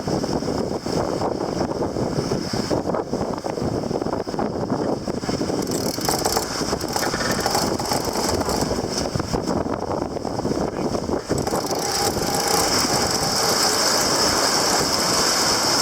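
Wind and rushing water on a Mumm 36 sailboat under way, with dense rapid clicking and rattling through it; a high hiss grows stronger about three-quarters of the way through.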